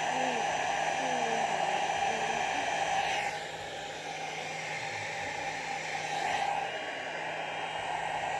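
Old handheld hair dryer running on setting 1, a steady rushing blow over a motor hum. About three seconds in it grows slightly quieter and its tone sweeps briefly, as the airflow shifts against the microphone.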